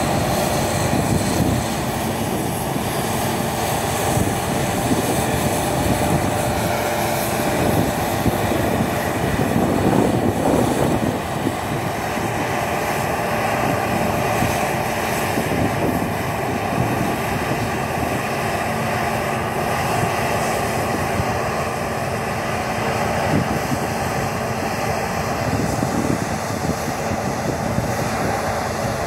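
Claas Lexion 580 combine harvester running steadily under load while harvesting wheat: a continuous drone of its engine and threshing machinery.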